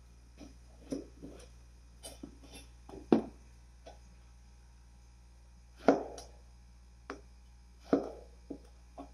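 Kitchen knife cutting through a peeled luffa and knocking on a plastic cutting board: irregular knocks, the loudest about three, six and eight seconds in, with lighter taps between.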